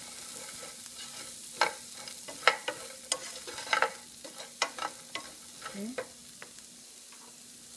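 Julienned carrots being stir-fried in oil in a nonstick frying pan, sizzling lightly as they are tossed with tongs. The tongs click against the pan at irregular moments, less often near the end.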